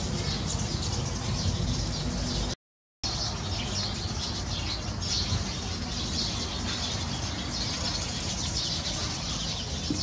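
A flock of Eurasian tree sparrows chirping together in a dense, continuous chatter as they gather to roost, over a steady low rumble. The sound cuts out completely for about half a second near three seconds in.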